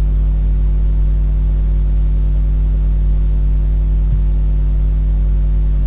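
Steady electrical mains hum: a low, unchanging drone with a stack of evenly spaced overtones, and no speech over it.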